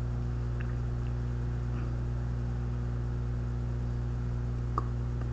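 Steady low electrical hum with faint hiss, and one faint click near the end.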